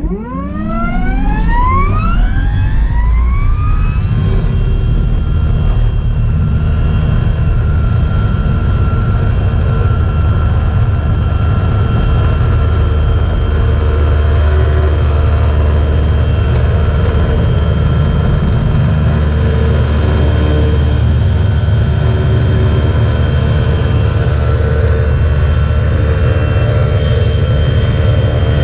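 Silent 2 Electro self-launching glider's electric motor and propeller spinning up, a whine rising in pitch over about four seconds, then holding steady at take-off power, with a heavy low rumble beneath.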